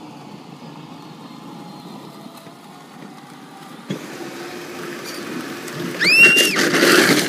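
Battery-powered kids' ride-on vehicles whirring as they move on the court surface, the sound building from about four seconds in as the ride-on UTV pulls up. About six seconds in, a child gives one high squeal that rises, holds and falls.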